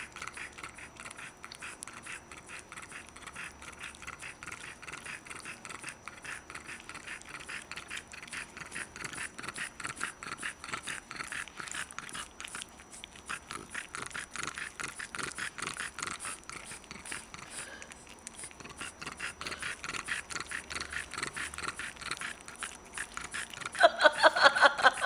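A dog licking another dog's face: a rapid, unbroken run of small slurping licks. About a second before the end, a much louder pitched sound pulses rapidly several times.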